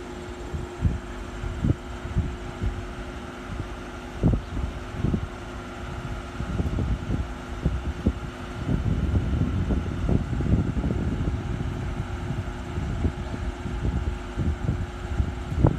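Wind buffeting the phone's microphone in uneven low rumbles and thumps, heaviest about nine to eleven seconds in, over a steady low hum.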